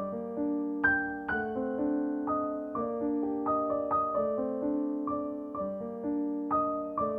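Background piano music: a slow, gentle melody of single struck notes, each fading before the next, about two a second.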